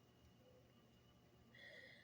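Near silence: room tone, with a faint brief high-pitched sound near the end.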